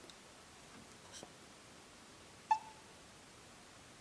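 HP LaserJet Pro MFP M283fdw touchscreen giving one short beep about two and a half seconds in as a key is tapped on its on-screen keyboard, with a faint tap about a second in.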